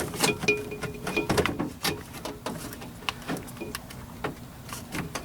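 Irregular clicks, knocks and rattles of the rear door handle actuator unit being worked loose from inside a Toyota Camry door, with a few brief squeaks in the first second and a half.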